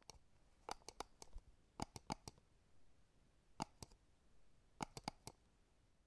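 Faint, sharp clicks over quiet room tone: single clicks and quick clusters of two to four, spread irregularly through the few seconds.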